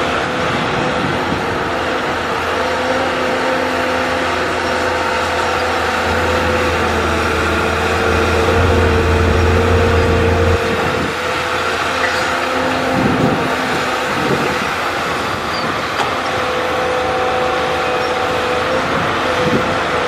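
Caterpillar hydraulic excavator's diesel engine running under load while digging, with a steady engine hum and whine. The sound swells and then drops off abruptly about halfway through, and a few knocks follow in the second half.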